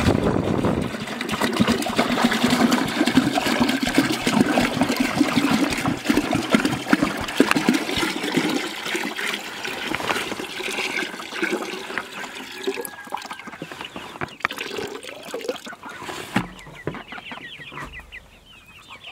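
Water pouring and splashing from an upturned 5-gallon plastic water jug into a plastic bucket, loudest in the first half and tapering off over the second half. Chickens cluck in the last few seconds.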